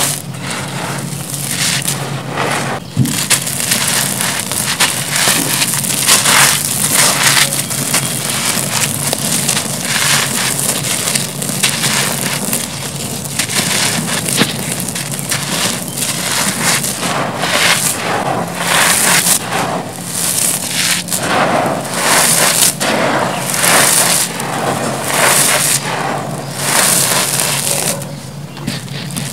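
Bare hands digging into and squeezing a pile of dry crumbled grey concrete, grit and dust. The result is continuous, irregular crunching, mixed with the hiss of grit pouring through the fingers.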